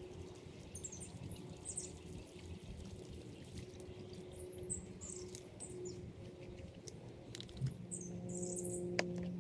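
Small birds chirping and singing in short, high calls over a steady low hum, with one sharp click near the end.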